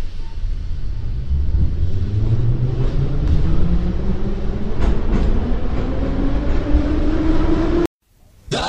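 Metro train pulling away, a steady rumble with a motor whine that rises in pitch as it gathers speed, and a couple of sharp clicks midway. It cuts off suddenly near the end and music begins.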